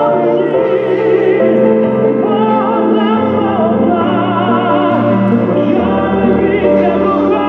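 Music with a singing voice holding wavering notes over a sustained accompaniment and a stepping bass line.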